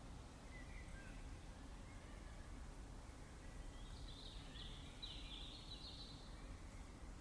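Faint songbird twittering in the background, a short call about a second in and a longer chirping phrase in the middle, over a steady low outdoor rumble.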